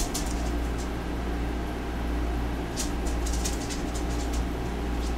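Steady low hum, with a few short clicks and ticks about three seconds in as food is torn and handled near the microphone.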